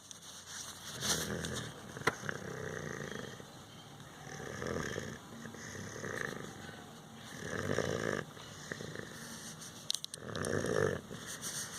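Snoring: slow, soft snores, about one every two to three seconds.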